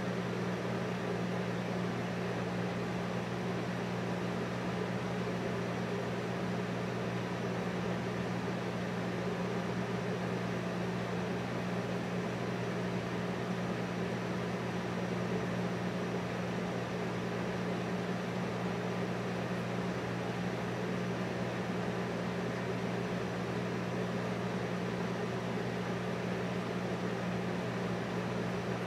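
Steady low machine hum with an even hiss over it, unchanging throughout.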